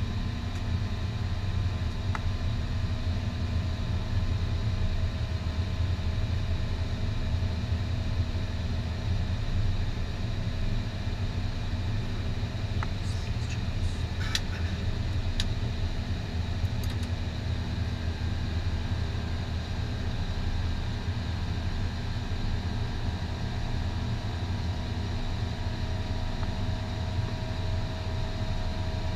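Steady low rumble and hum inside an Airbus A321's flight deck, holding even throughout, with a few light clicks about halfway through.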